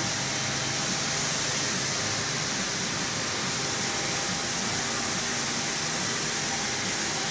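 Steady hiss and hum of running CNC woodworking machinery, with a thin high whine held throughout.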